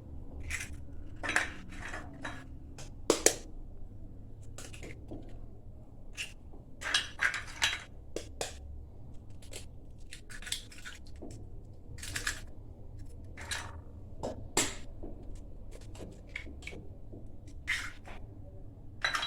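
Eggs being cracked against a bowl and emptied in: an irregular run of sharp taps and clicks of shell and bowl.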